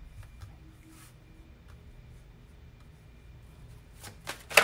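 Tarot cards being handled and drawn: faint scratchy clicks, then a few sharp clicks near the end, the last one the loudest.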